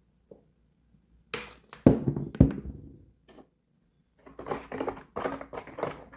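Kitchen containers and utensils being handled: two solid thunks about half a second apart, then a few seconds of clattering and rustling.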